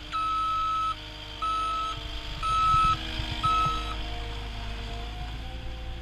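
Backup alarm of a CAT 236D skid steer loader beeping four times, about once a second, signalling reverse travel, over the loader's diesel engine running.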